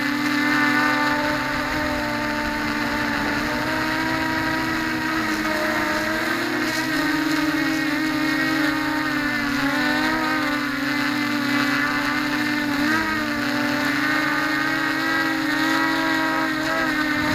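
Mini quadcopter's electric motors and propellers whining steadily in flight, the pitch wavering up and down as the throttle shifts.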